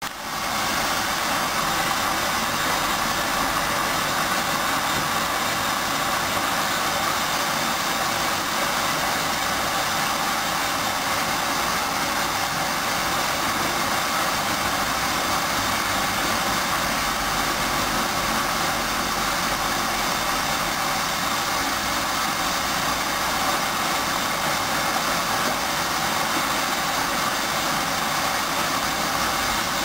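Hoover washing machine running with a duvet inside: a steady, even whirring noise that cuts in suddenly and holds without change.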